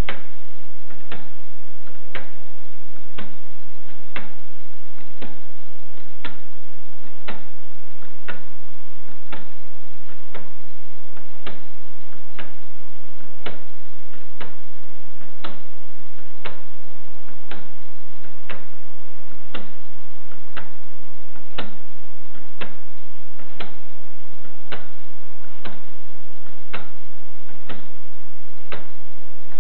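Wooden gear clock ticking, its escapement giving one sharp, even tick about once a second.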